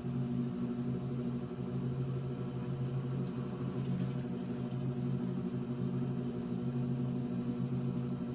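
Electrolux Turbo Economia 9 kg washing machine in its final spin, the drum turning at a steady speed with a steady motor hum.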